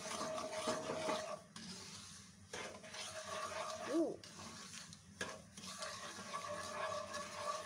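Wooden spoon stirring semolina through hot ghee in a non-stick wok: a steady scraping and light sizzle, broken by short pauses between strokes. A brief rising-and-falling squeak sounds about four seconds in.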